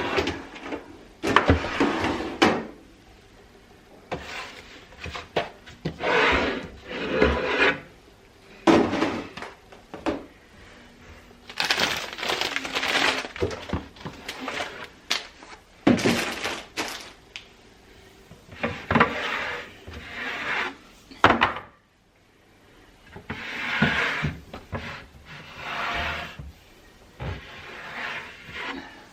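Kitchen items being handled and put down: an irregular run of clatters, knocks and rustling, a burst every second or two.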